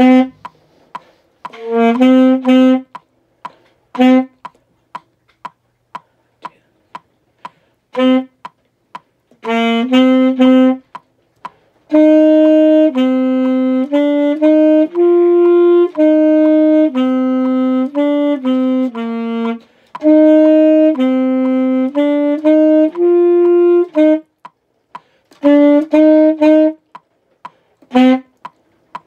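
Solo saxophone playing a band part in short phrases broken by rests, with a longer unbroken run in the middle, over a metronome clicking steadily at 120 beats a minute, about two clicks a second.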